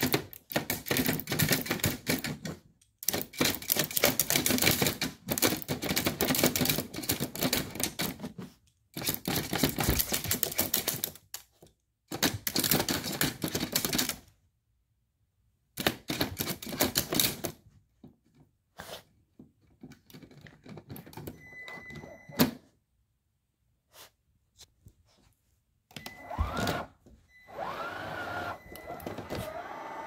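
Several bursts of rapid scratching and clicking, each a few seconds long, from a Yorkshire terrier pawing and nosing at a robot vacuum and a toy. Near the end the robot vacuum starts up with a rising motor whine, then runs with a steady hum and a high tone.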